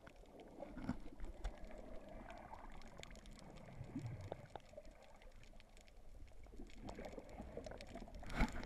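Water and air bubbles heard underwater, muffled through the camera's waterproof housing: a steady wash dotted with small clicks and crackles, swelling into a louder surge near the end.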